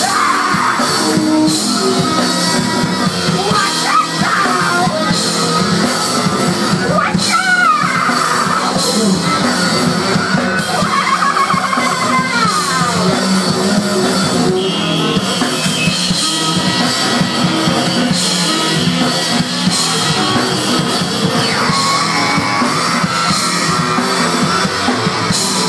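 Live brass-rock band playing loudly: saxophones including a baritone sax, drum kit and bass, with several sliding wails rising and falling above the band.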